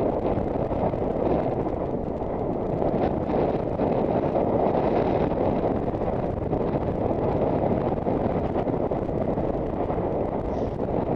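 Steady rushing wind noise on the helmet-camera microphone of a horse galloping at about 16–17 mph.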